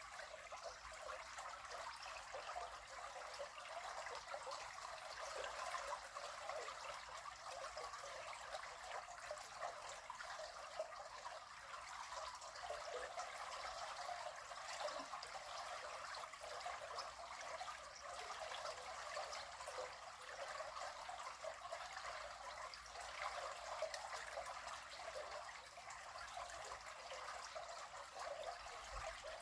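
River water flowing steadily, a continuous trickling and splashing of the current.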